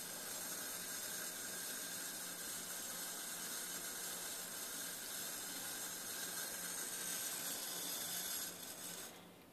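Water running steadily from a faucet into a sink with a cat lying in it, a steady hiss that tapers off and stops about nine seconds in as the tap is shut off.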